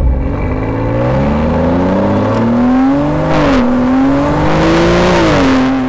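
Aston Martin DB11 AMR's 5.2-litre V12 exhaust note as the car accelerates away. The engine pitch climbs, drops at an upshift about three and a half seconds in, and climbs again before fading near the end.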